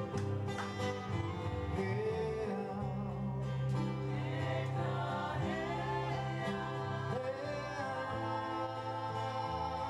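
Two women singing a song together over instrumental backing, with long held notes and pitch glides above steady bass notes.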